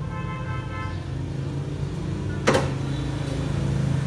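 A driver being handled and fitted into a trolley speaker cabinet, with one sharp knock about halfway through, over a steady low hum like an idling engine.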